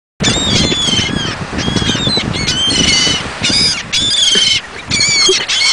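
A flock of seagulls calling loudly, many harsh squawking calls overlapping with short breaks between groups, starting abruptly just after the start. A low rumbling noise runs underneath.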